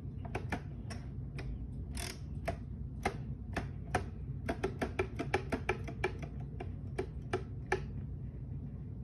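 Keys being pressed one at a time: a run of about two dozen sharp, irregular clicks while numbers are worked out. The clicks quicken to three or four a second in the middle and stop shortly before the end, over a steady low hum.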